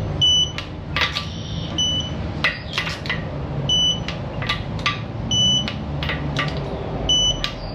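A short electronic beep repeating five times at an even pace, about every second and three-quarters. Metallic clinks and taps of tools fall between the beeps, over a steady low hum.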